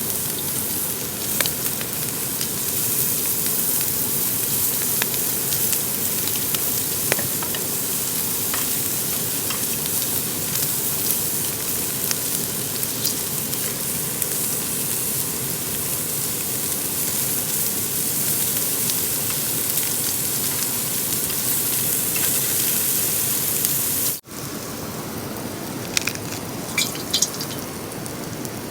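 Pork sizzling and crackling on a hot grill, a steady hiss with small pops. About 24 seconds in it cuts off abruptly to steady rain with a few sharp drips.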